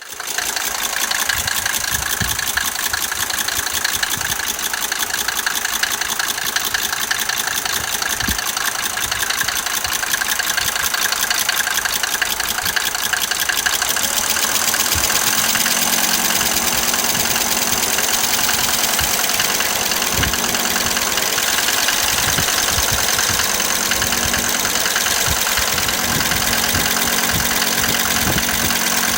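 Mercedes-Benz 190D 2.5's five-cylinder diesel engine idling steadily with its diesel clatter. Its sound changes somewhat about halfway through.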